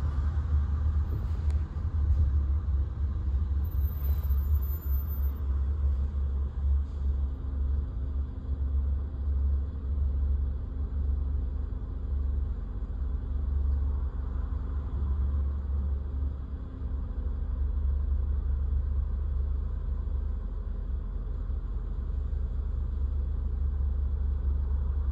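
Steady low rumble of a moving car heard from inside the cabin, the road and driving noise of the car ride.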